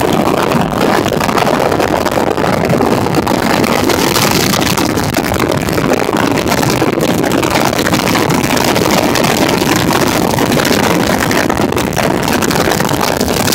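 Bass Cat bass boat underway, its outboard engine running steadily under a constant rush of wind and water noise across the open bow.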